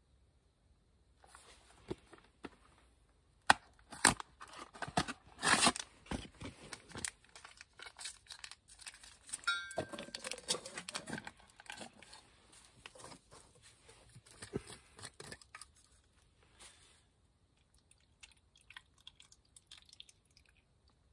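Packaging being opened: a cardboard box of retort beef curry and the foil retort pouch inside, crinkling, crackling and tearing in irregular bursts, loudest for a few seconds early on. The noise then thins to a few faint clicks for the last few seconds.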